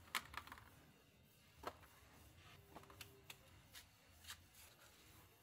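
Faint, sharp knocks and clatters, about eight in all and the loudest just after the start, as shoes are put into a perforated plastic laundry basket.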